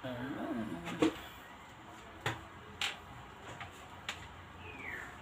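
Several light clicks and knocks, spaced about half a second to a second apart, from things being handled on a table. A short falling squeak comes near the end.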